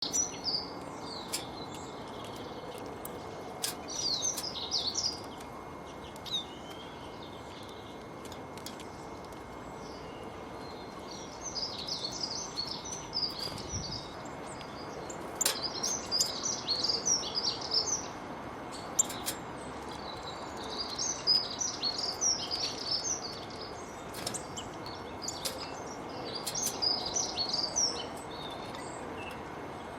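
Small garden birds chirping and twittering in repeated quick phrases, over a steady background hiss, with a few sharp clicks scattered through.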